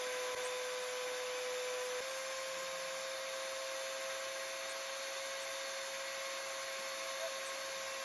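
710 W spindle of a desktop CNC router running at high speed with a steady whine while a small end mill cuts a hole into acrylic sheet. Its pitch steps up slightly about two seconds in.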